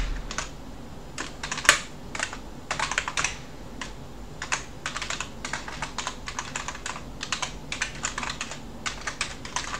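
Computer keyboard being typed on: irregular keystroke clicks in short runs, with one sharper key strike a little under two seconds in.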